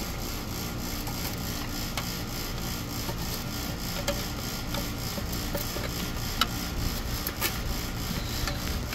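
A tool scraping and stirring thick roofing tar in a small can, with scattered light clicks, over a steady low hum.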